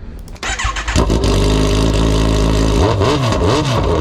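Kawasaki Ninja 1000SX inline-four motorcycle engine with its exhaust silencer removed, running on the open pipe. The starter turns it over briefly and it catches about a second in, idles, then is blipped twice near the end, rising and falling in pitch each time.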